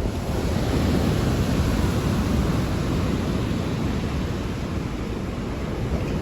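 Thunderstorm: a long, low rumble of rolling thunder over the steady hiss of heavy rain, slightly louder about a second or two in.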